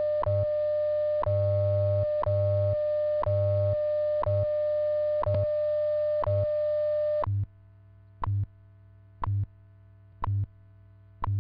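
WWV time-signal broadcast: a steady tone over a tick every second and a low humming time code pulsed in long and short beats. The steady tone cuts off about seven seconds in, leaving only the once-a-second ticks and the low time-code pulses before the next voice announcement.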